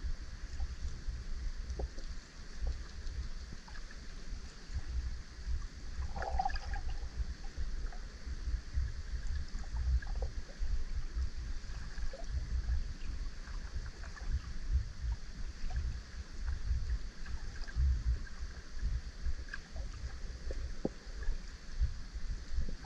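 Underwater ambience in shallow lake water: a low, unsteady rumble of water movement with scattered faint clicks and ticks, and a brief higher squeak about six seconds in.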